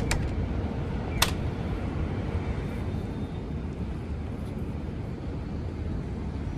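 Steady low rumble of outdoor city traffic ambience, with one sharp click about a second in.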